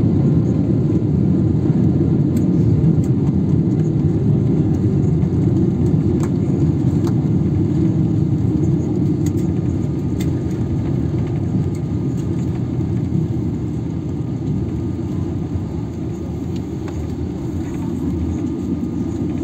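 Cabin noise of a Boeing 777-300ER rolling out on the runway just after landing: a steady deep rumble of engines and wheels that slowly dies down as the airliner slows, with a few faint clicks.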